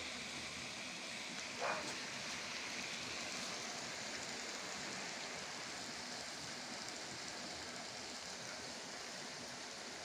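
Seafood and vegetables frying on an oiled steel disc griddle: a steady, even sizzle, wetter now that the tomatoes are giving off their juice. A brief short sound about two seconds in.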